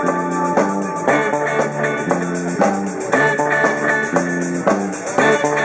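Live rock band playing: electric guitars and electric bass through amplifiers over a drum kit, a riff repeating about twice a second.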